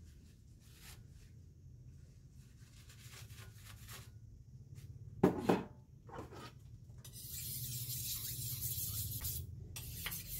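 Quiet rubbing and a couple of knocks as a wok is wiped with a paper towel, then, about seven seconds in, a steady metallic rasp of a kitchen knife being drawn against a sharpening steel, with a short break near the end.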